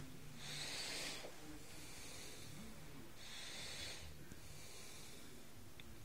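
Soft breathing close to the microphone: two hissing breaths, one about half a second in and another about three seconds in.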